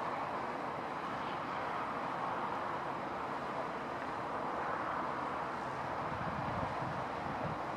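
Cessna Citation CJ3 business jet's twin turbofan engines, heard as a steady rushing roar with a faint low hum under it.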